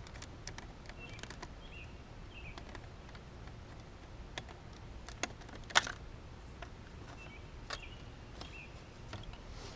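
Scattered light clicks and taps from a screwdriver and small plastic door-lock-switch parts being handled in a truck door, with one sharper click about six seconds in, over a low steady hum.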